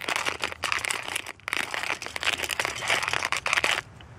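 GSI hand-cranked coffee grinder with a ceramic burr grinding whole coffee beans: a fast, dense crunching that stops near the end.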